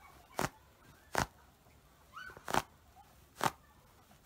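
KA goalkeeper gloves' foam palms clapped together four times, about a second apart, each a sharp slap. The palm foam has just been freed of its protective plastic.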